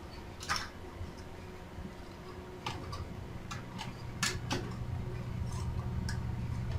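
Scattered sharp clicks and taps of hands handling a metal bracket and TV parts, about half a dozen, over a low steady hum that grows a little louder partway through.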